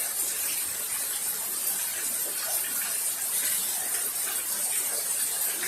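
Steady heavy rain pouring down, an even hiss with no thunder in it.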